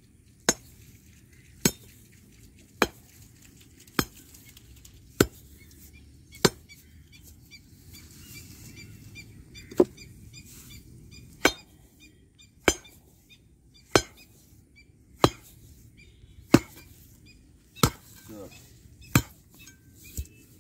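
Iron bar ramming stones and soil into a post hole around a wooden fence post. The impacts are sharp single knocks, about one every second and a quarter, about fifteen in all, with a short pause about a third of the way through. The ramming packs the fill so the post sets tight.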